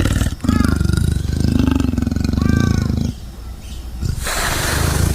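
Big cat vocalizing: a long, rasping growl-roar of about two and a half seconds, then after a short pause a second, breathier rasping call near the end.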